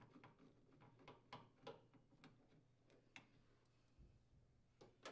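Near silence with faint, scattered clicks, most of them in the first three seconds: a Phillips screwdriver unthreading a screw from the microwave's sheet-metal light-socket access cover.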